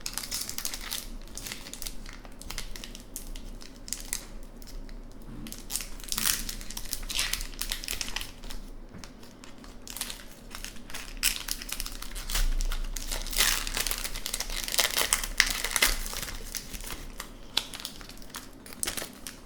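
Crinkling and tearing of a trading-card pack's foil wrapper as it is ripped open and the cards are handled, in uneven bursts of crackle.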